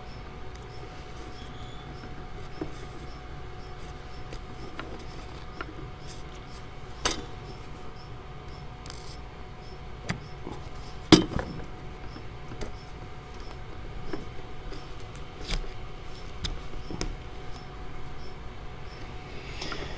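Scattered light clicks and taps of hands handling woven watercolor paper strips and small craft tools on a tabletop, the sharpest click about halfway through.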